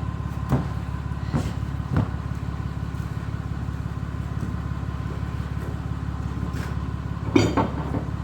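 Pickup truck engine idling steadily, with a few short knocks early and a louder clatter near the end as heavy metal equipment is handled on the truck.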